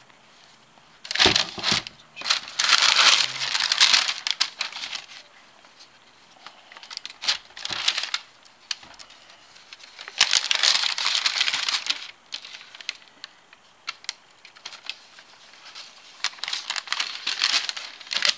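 Paper crinkling and rustling as shoes are handled in their box during an unboxing, in several bouts: a long one in the first few seconds, a short one around the middle, another a few seconds later, and one near the end.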